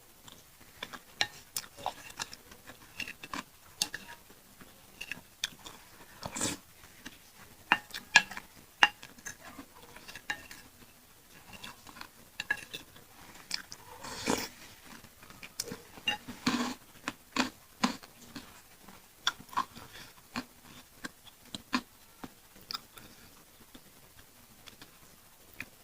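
Close-miked chewing and wet mouth sounds of eating pentol meatballs in chili sauce: irregular smacks and clicks, with occasional light clinks of cutlery on a dish.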